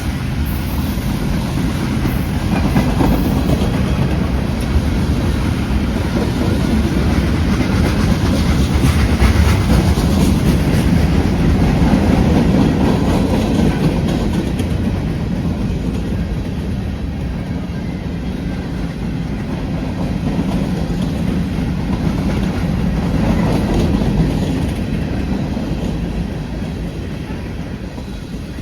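Freight train rolling past, its cars' wheels rumbling and clacking over the rail joints. The sound swells and eases and falls away near the end.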